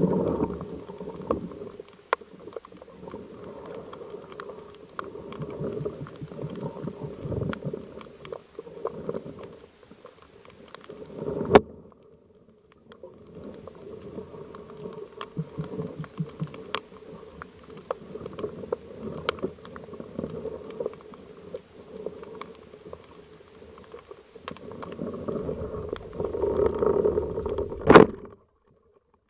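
Muffled underwater noise heard through a camera's waterproof housing on a speargun, with scattered faint clicks. A loud, sharp crack comes twice, once about midway and once near the end.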